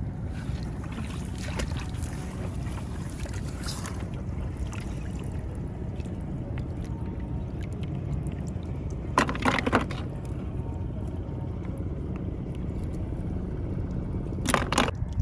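Steady low rumble with two short bursts of splashing in shallow paddy water, one about nine seconds in and one near the end.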